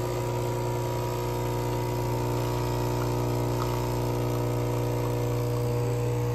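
Capsule espresso machine's pump humming steadily while it brews, coffee streaming into the cup.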